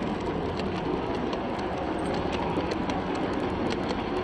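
Model train running on a layout's track, its wheels giving a steady run of small clicks over a continuous rumble of hall noise.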